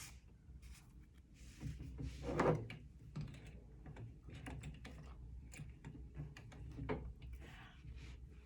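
Faint, irregular light clicks and small knocks from an antique vibrating-shuttle treadle sewing machine being worked and handled, over a low steady hum.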